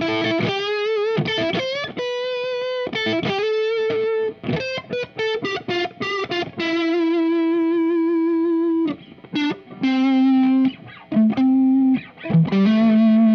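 Electric guitar (Fender Telecaster) through a JHS Angry Charlie distortion pedal into a Marshall JCM 800 amp, playing an overdriven single-note lead line. Held notes with vibrato alternate with short clipped notes, including one long sustained note in the middle, and it ends on a note bent up and held.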